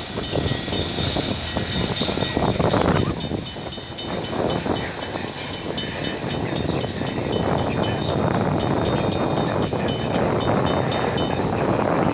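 Freight train's cars rolling on the rails as its tail end passes and moves off: a steady rumbling of wheels on track.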